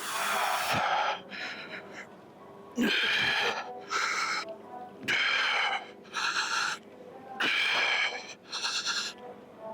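A man breathing hard from the effort of weight training, with loud paired in-and-out breaths about every two seconds.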